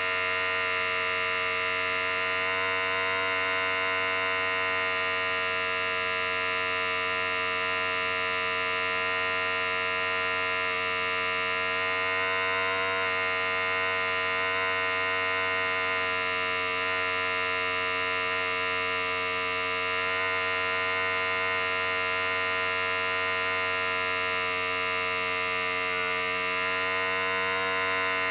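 Electric hair clippers running, a steady buzz that holds constant without a break.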